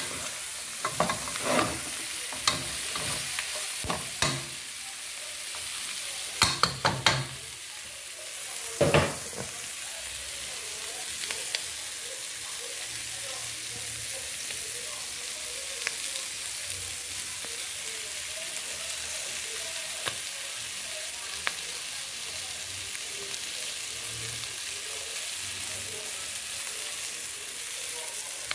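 Chicken pieces with onion, peppers and tomato sizzling in a metal pot. For the first nine seconds or so a spoon scrapes and knocks against the pot as they are stirred, and after that there is only a steady sizzle with small pops.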